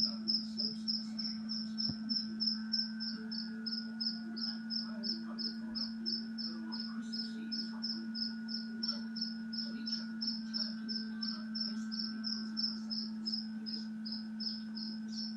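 Newborn black francolin chick chirping: a long, even run of short high peeps, about three a second. A steady low hum runs underneath.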